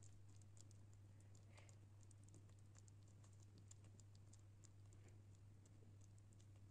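Near silence: a steady low hum with faint, irregular ticks scattered throughout.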